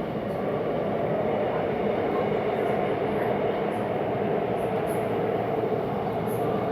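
Steady rumbling noise that keeps an even level throughout, with no distinct knocks or tones.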